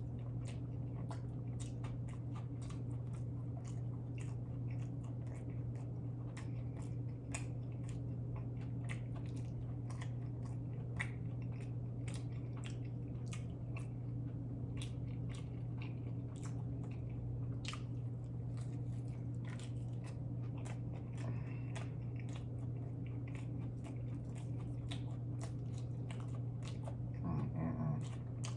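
A person chewing and biting food close to the microphone, with many small wet mouth clicks and some crunching, over a steady low hum.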